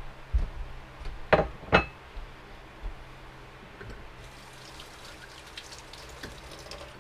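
Two sharp knocks early on. Then, about four seconds in, a kitchen faucet is turned on and water runs into a stainless steel sink with a steady hiss.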